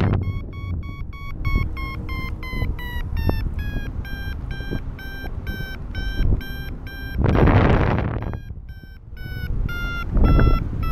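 Paragliding variometer beeping steadily, about three short beeps a second, signalling that the glider is climbing; the pitch sinks slowly as the climb weakens. Wind rushes over the microphone in two gusts, about seven and ten seconds in.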